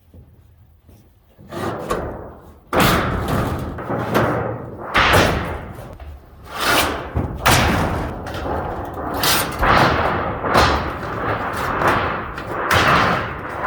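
Repeated heavy knocks, a dozen or so at roughly one a second and irregularly spaced, each ringing briefly, starting about a second and a half in.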